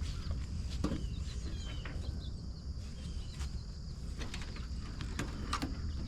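Faint bird chirps, a few short falling calls, over a steady low rumble, with scattered light clicks and rustles.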